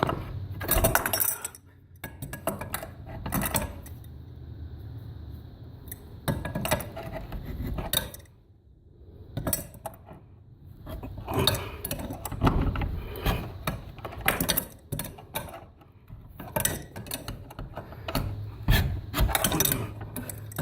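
Metal wrench clinking and scraping on a nut of a foundation bolt being tightened, in irregular runs of sharp clicks and knocks, with a short lull about halfway.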